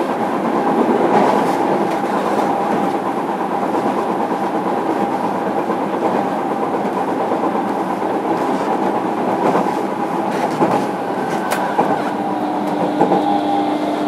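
JR Kyushu 305 series electric train standing at the platform, giving off a steady hum and hiss with a constant mid-pitched tone. A lower steady tone joins near the end.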